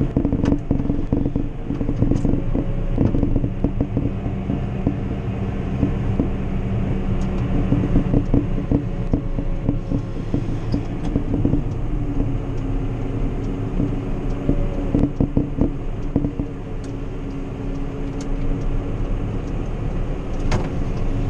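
Tractor diesel engine running, heard from inside the cab, with frequent small knocks and rattles. The engine note shifts about halfway through.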